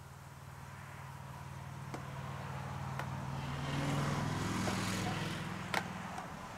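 A car passes by, its engine hum and road noise swelling to a peak about four seconds in and then fading. A few sharp clicks come from a metal paint can lid being pried open with a small tool, the loudest near the end.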